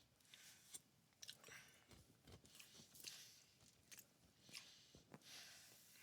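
Faint chewing and biting of food, with soft crunches and mouth clicks at irregular intervals.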